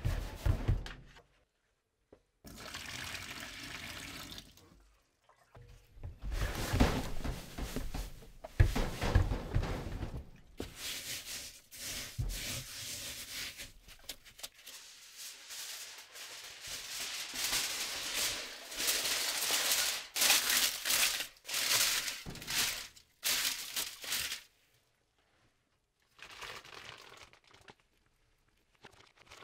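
Dry white granules pouring into a plastic tub and being raked and crumbled by a gloved hand, a rushing, rustling sound that comes in several separate stretches with short silences between them.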